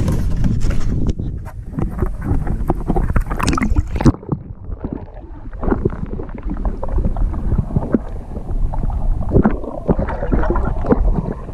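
Wind on the microphone and water splashing as a snook is lowered over the side of a boat for release. About four seconds in the high end cuts off suddenly and the sound turns muffled as the camera goes under the water beside the fish, with scattered knocks.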